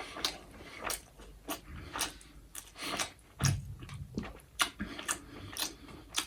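Close-miked chewing of a bite of raw chapi, a Nepali green onion, with crisp crunches about twice a second.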